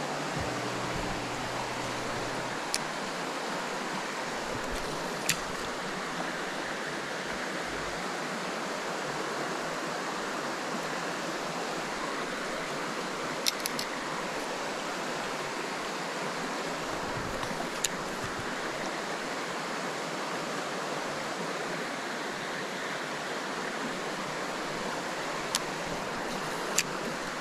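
Creek water running steadily, with a few sharp clicks scattered through, among them a quick triple click about halfway.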